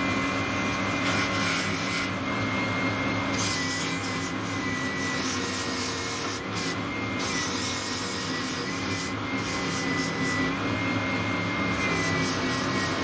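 A power sander running with a steady motor whine that wavers slightly in pitch. It is sanding a resin-coated burl headstock plate back to its outline, and the rasp of the abrasive on the wood comes and goes as the work is pressed on and eased off.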